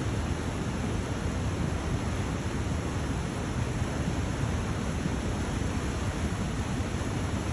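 Flash-flood debris flow rushing down a formerly dry creek bed: a steady rushing noise of churning water, heaviest in the low end.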